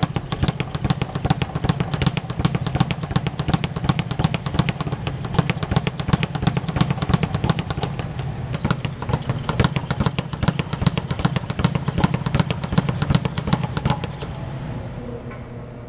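Speed bag being worked with fast, steady punches, the bag rattling against its round rebound platform in a rapid, even drumming of many hits a second. The drumming stops about two seconds before the end.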